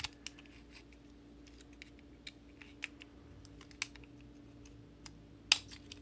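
Scattered small clicks and taps of a clone fidget cube's plastic parts and a metal pick being handled as the cube is taken apart. The loudest is a sharp click about five and a half seconds in.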